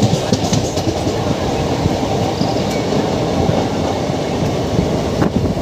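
Passenger express train running on the track, heard from aboard at an open window: a steady rumble of wheels on rail, with a few sharp clicks in the first second.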